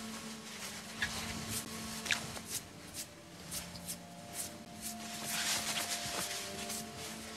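Rustling of cloth vestments and small handling clicks as hands adjust the garment, over a faint steady hum.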